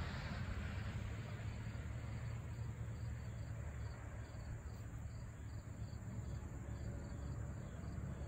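An insect chirping in a steady rhythm, about three high chirps a second, over a steady low background rumble.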